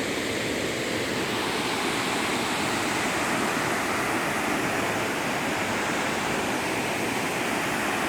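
Steady rushing roar of a large waterfall heard from the top of the falls, where the water plunges over the edge.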